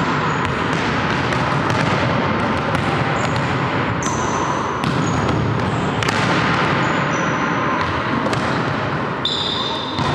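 Volleyballs being struck and bouncing on a wooden gym floor during practice, irregular thuds echoing in a large hall over a steady background of hall noise.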